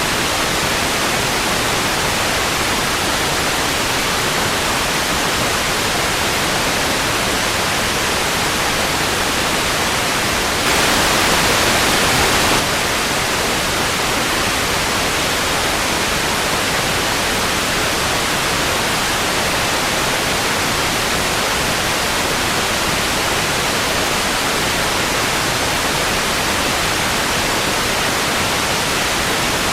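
Old analogue television static: a steady, even hiss of white noise. About eleven seconds in it swells louder and brighter for about two seconds, then settles back.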